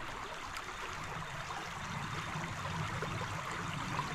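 Small creek running and trickling steadily over shallows.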